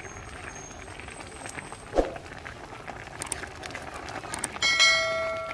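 Metal ladle striking the rim of a metal wok, ringing out with a bright metallic tone that fades over about a second, near the end. A single dull knock about two seconds in.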